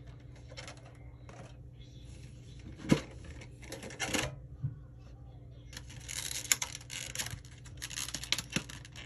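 Stiff plastic packaging being handled, crinkling and clicking in irregular bursts, with a sharp click about three seconds in and denser crinkling over the last few seconds.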